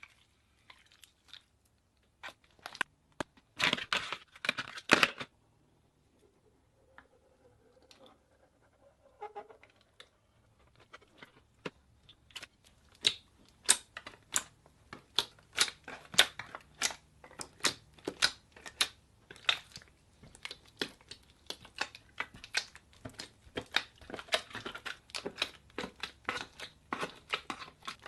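Slime being squeezed and poked by hand, making sharp crackling pops and crunches. There is a dense burst of crackling a few seconds in, then near the middle a run of repeated pops at about two or three a second.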